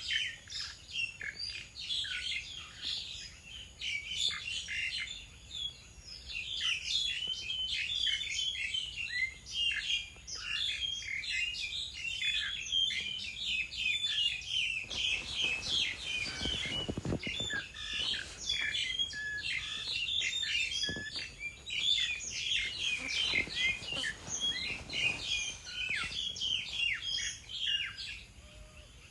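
Many birds chirping and tweeting in a dense, continuous chorus of short overlapping calls, with a brief burst of noise about halfway through.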